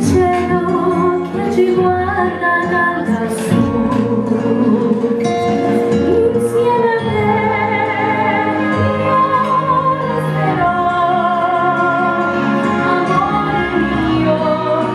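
A young woman singing solo into a microphone over an instrumental backing, holding long notes with a wavering vibrato.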